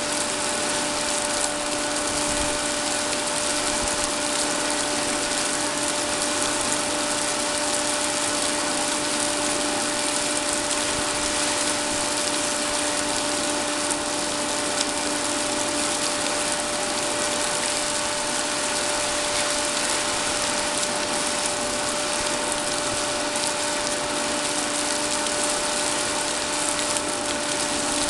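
Oil rig machinery running steadily: an even rushing noise over a constant hum made of two steady tones.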